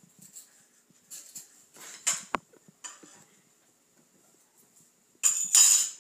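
Knife and fork clicking and scraping on a plate while cutting food, with a sharper click a little after two seconds in. Near the end comes a short, loud burst of noise.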